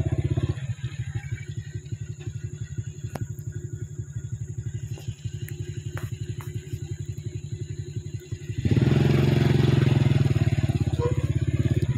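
Small motorcycle engine running at low revs with a fast, even pulse, then picking up and running louder about nine seconds in.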